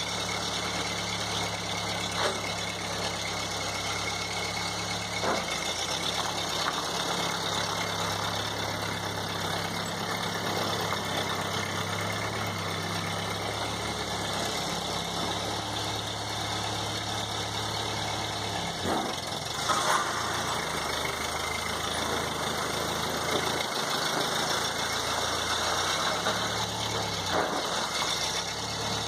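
1952 Ford 8N farm tractor's four-cylinder flathead engine running at a steady low speed, its pitch stepping up and down as the throttle and load change while it drags gravel, with a few short clanks, the loudest about two-thirds of the way through.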